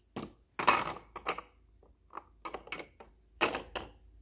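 Hard plastic toy food pieces clacking and knocking against a plastic play-kitchen grill and counter as they are picked up and set down: about eight irregular clicks and taps, with short quiet gaps between them.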